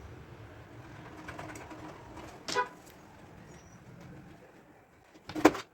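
A single short coo-like bird call about two and a half seconds in, over a low steady background hum, then a few sharp clicks near the end.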